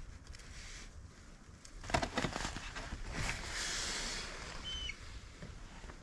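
Knife and bowl handling as a banana is sliced into a bowl of cereal: a quick cluster of clicks and knocks about two seconds in, then a rustling hiss. A single short bird chirp near the end.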